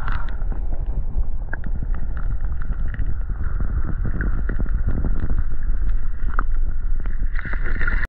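Wind buffeting the microphone in a heavy low rumble, with water sloshing and splashing as a common carp is let go back into the creek.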